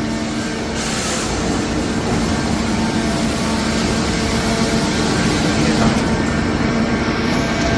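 Heavy steel-processing line for hot-rolled coil running under power: a dense, steady mechanical rumble with a low, even hum over it.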